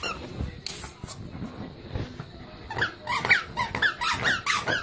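A quick run of short, high squeaks, several a second, starting about halfway through, with a brief hiss about a second in.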